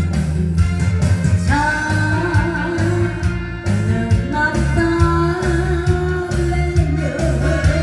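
A woman singing into a microphone in a thick, full-throated voice over an amplified backing track with guitar and bass.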